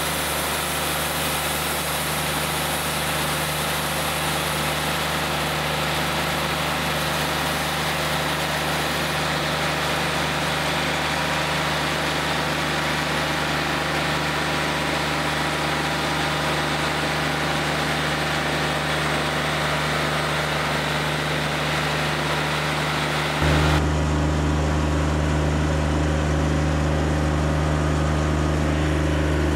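Wood-Mizer LT40 Wide portable band sawmill running, its band blade cutting through a log: a steady engine drone under a constant sawing hiss. About three-quarters of the way through, the hiss drops away and the engine's low drone becomes louder.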